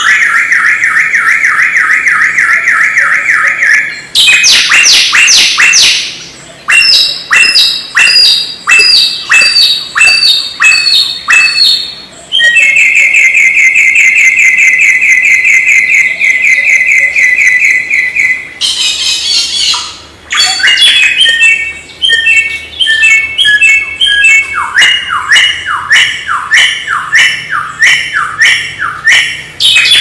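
Wild samyong songbird singing a loud, varied song: long fast trills alternate with runs of quick, sharply falling notes, repeated phrase after phrase with only brief pauses.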